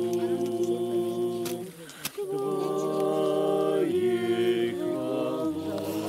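A group of men and women singing together, several voices holding long drawn-out notes, with a short break for breath about two seconds in.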